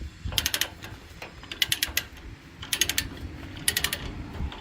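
Ratchet chain load binder being cranked to tighten a tie-down chain: four strokes about a second apart, each a quick run of ratchet clicks.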